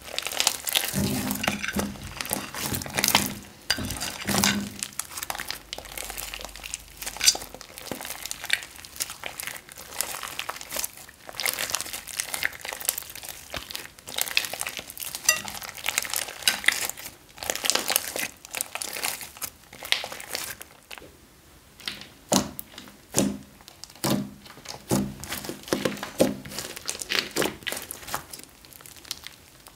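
Glittery slime mixed with small beads being kneaded, folded and stretched by hand, giving dense, irregular crackling clicks and pops.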